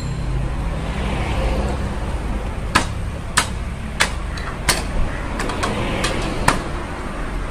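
A handful of sharp taps and knocks on a metal slatted gate as it is wiped down by hand, about eight in three or four seconds, over a steady low rumble of road traffic.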